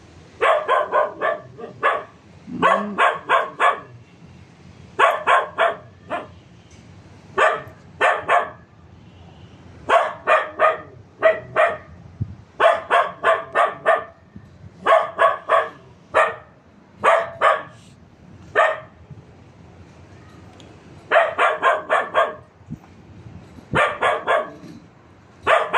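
A small tan dog barking over and over in quick volleys of three to five barks, a new volley every couple of seconds with short pauses between.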